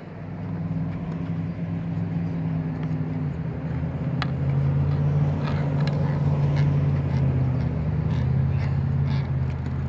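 Low, steady hum of a motor vehicle's engine running close by, growing louder over the first few seconds and then holding. A few faint sharp knocks come through about four and six seconds in.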